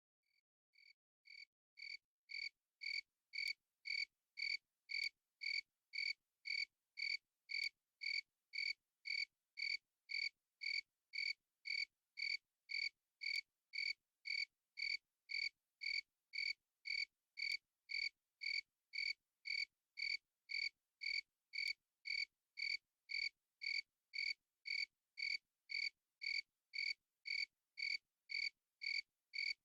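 A cricket chirping in a strict, even rhythm, about one and a half high chirps a second, every chirp alike. It fades in over the first two seconds, then holds steady.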